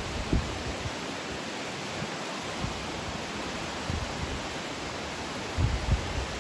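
Steady outdoor hiss with wind buffeting the microphone in low rumbling gusts, once shortly after the start and several times near the end.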